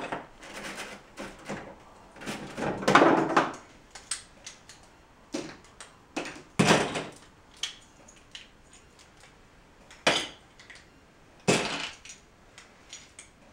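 Plastic Lego bricks clattering and clicking as a model building is pulled apart and the pieces are put down on the table. Irregular small clicks and rattles, with a louder jumble of pieces about three seconds in and a few sharper knocks later on.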